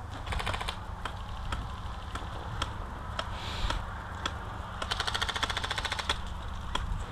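Airsoft electric guns firing: a short rapid full-auto burst just after the start, then single shots about every half second, then a longer rapid burst lasting about a second past the middle.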